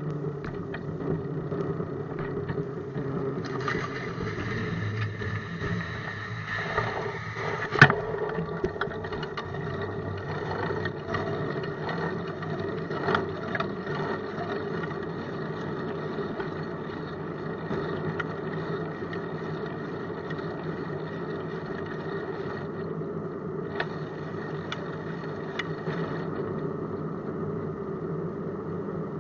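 A bicycle being ridden, heard from a camera mounted on it: a steady hum with rattles and small knocks as it rolls over pavement, and one sharp knock about eight seconds in.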